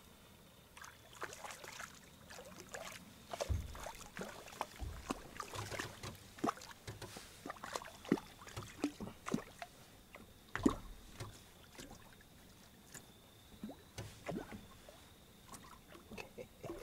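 Irregular light clicks and knocks of fishing gear being handled in a small boat, with a few dull thumps about three and a half, five and eleven seconds in.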